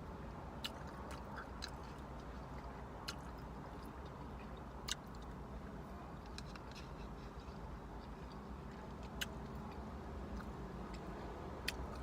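A person chewing food close to the microphone, with scattered soft wet mouth clicks and smacks every second or so over a low steady hum.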